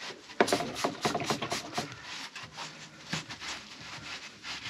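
Small brush scrubbing a steel chassis rail in short, scratchy strokes at about three a second, washing off deoxidising rust-remover gel.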